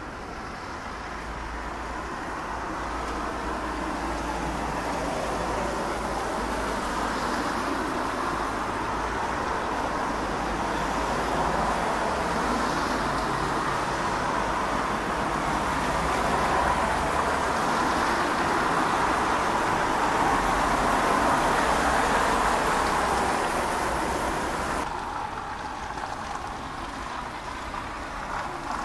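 Distant roar of a high-flying Airbus A320-214's jet engines: a steady rushing rumble that slowly swells and then eases off, its higher hiss dropping away suddenly near the end.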